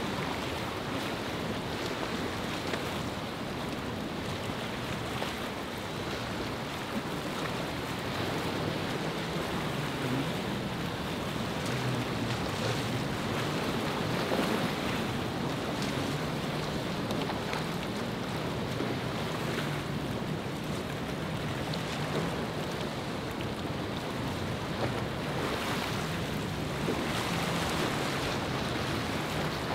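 Surf and choppy waves rushing, with wind buffeting the microphone and the low drone of a motorboat's engine running through the chop.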